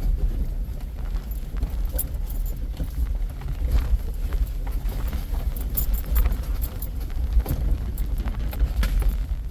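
Vehicle driving slowly over a rough dirt trail, heard from inside the cab: a steady low rumble with irregular clicks, knocks and rattles as it jolts over the bumps.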